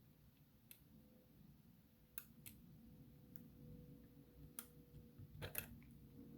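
Faint, scattered metallic clicks from a pick working the pins of a Yale 6-pin dimple lock held under tension, spaced about a second apart. A quick cluster of clicks comes near the end as a very short pin is tapped and the lock opens.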